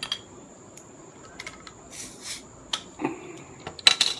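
A bottle opener prying the metal crown cap off a glass beer bottle: small clicks and scrapes, a short hiss about halfway through, and a couple of louder sharp sounds near the end.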